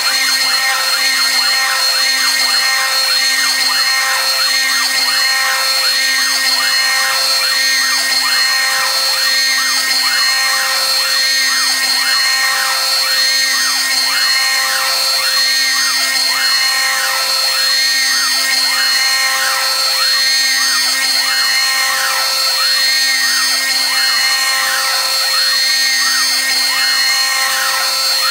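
CNC router spindle at 18,000 rpm with a small end mill conventional-milling a circular hole in aluminum plate at a 0.03 in depth of cut, under a compressed-air chip blast. A steady high spindle whine runs under a cutting tone that rises and falls about three times every two seconds as the cutter circles the hole.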